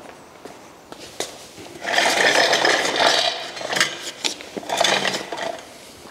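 Footsteps on a concrete floor, then, from about two seconds in, a metal portable scissor-lift platform dragged and shifted across the concrete: a rough scraping and rattling in about three stretches.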